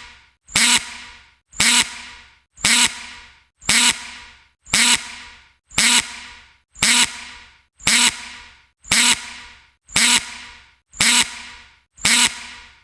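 Drill gear sound effect: a short, sharp mechanical burst with a ringing edge that fades out, repeated about once a second.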